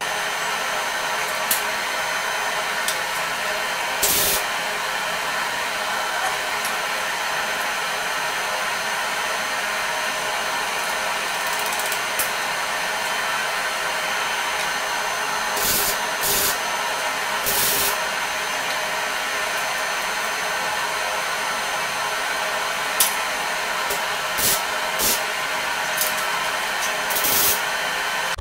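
Arc welding on the steel steering-column joint: a steady, loud hissing buzz with a few short sharp clicks.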